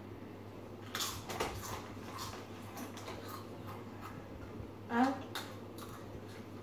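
A few short crunches and clicks of Doritos tortilla chips being bitten and chewed, with a brief voice sound about five seconds in.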